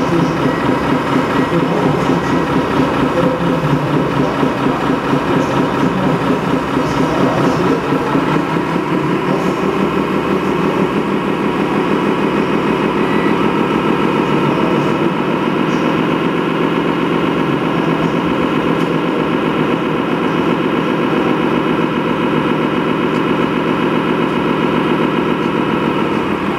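Diesel engine sound of a 1:8 scale model truck running steadily at idle, its note shifting a little about a third of the way in.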